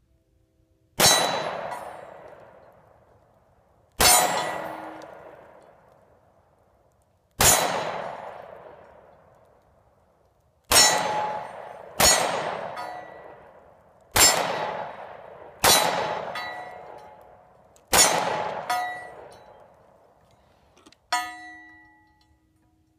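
Eight single shots from a Smith & Wesson M&P Shield 9mm pistol, spaced one to three and a half seconds apart, each with a long echoing tail. A fainter sharp metallic ring follows near the end.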